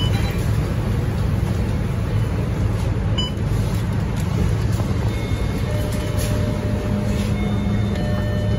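Scania K230UB single-deck city bus under way, heard from inside the passenger cabin: a steady low drone from its five-cylinder diesel engine and drivetrain, with a faint higher whine joining past the middle.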